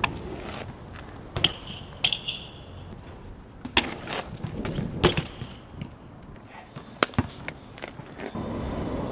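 BMX bike riding on concrete: tyres rolling with a series of sharp, irregular clacks and knocks, about half a dozen, as the bike meets the ground and obstacles.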